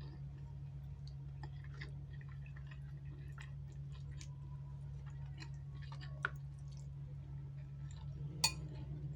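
Close-miked eating: chewing and wet mouth sounds with scattered small clicks. Two sharper clinks, like a utensil or the glass, come about six and eight and a half seconds in. A steady low hum runs underneath.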